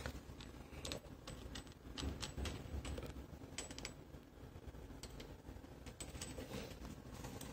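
Irregular light clicks and small metallic taps, a few a second, from handling a basin mixer tap's braided supply hoses and metal fittings.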